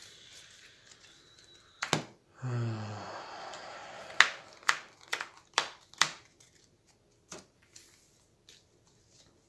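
Playing cards being handled and laid down on a table: cards slide together, then about five sharp slaps in quick succession, followed by a few lighter taps. A short low voice sound comes about two and a half seconds in.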